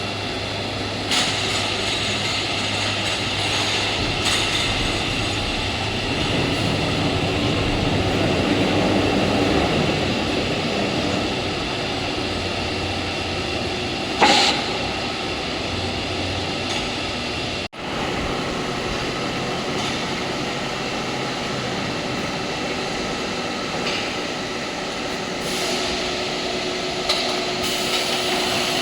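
Hydraulic press block-making machinery running: a steady machine hum with hiss, and a brief louder burst about fourteen seconds in.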